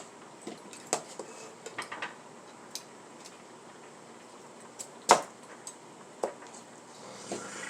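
Kitchen clatter of a knife and dishes: scattered light clicks and knocks while yams are being cut into small pieces, with one sharper knock about five seconds in.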